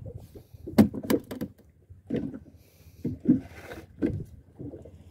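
Handling knocks on a small boat as fishing gear is moved about: a few sharp clicks about a second in, then dull thumps against the hull and a brief hiss.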